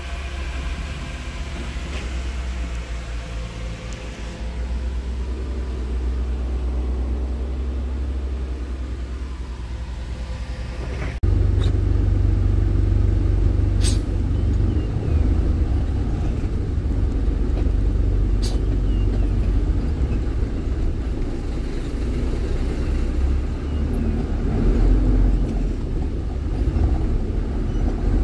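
Heavy diesel engines running steadily. About eleven seconds in the sound changes abruptly to a louder, deeper engine rumble, with two sharp clicks shortly after.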